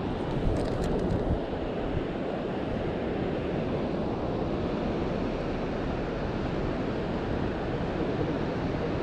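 Steady rushing noise of river water flowing below a weir, mixed with wind buffeting the microphone.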